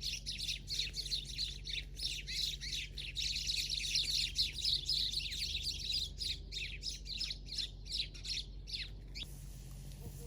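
A busy chorus of small birds chirping and twittering, many quick overlapping notes that drop in pitch. It cuts off suddenly about nine seconds in.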